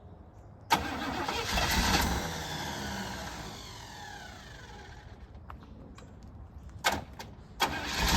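1987 Chevrolet Monte Carlo SS engine on its first start attempt after sitting for years: about a second in it catches suddenly and runs briefly, its revs falling away over a few seconds until it dies. Two short bursts of sound come near the end.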